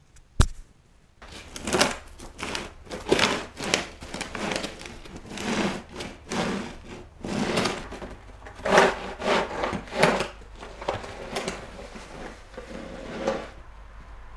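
Snow shovel scraping across a snow-covered driveway, a long run of uneven strokes about one or two a second. A single sharp click comes about half a second in.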